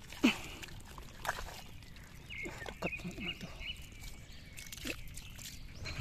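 Hands digging and squelching in wet mud at an eel hole, with a few sharp snaps, the loudest right at the start. A thin steady whine joins about two seconds in.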